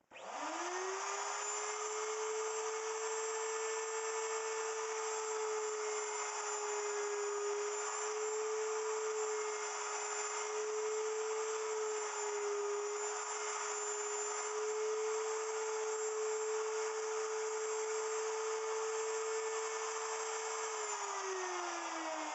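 Wood router on a router milling machine spinning up and running at a steady high speed, its pitch sagging briefly a couple of times as the bit cuts the taper into the side of a cedar block. It winds down with a falling pitch near the end.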